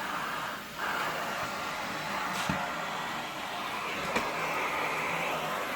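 Central vacuum suction through the hose and floor brush: a steady rushing hiss of air as the brush glides over a wood floor, with a couple of light clicks.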